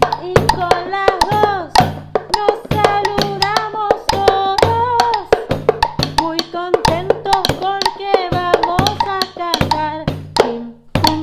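A woman singing a greeting song in a candombe rhythm over a plucked string accompaniment, with frequent sharp percussive strikes keeping the beat. The song stops near the end.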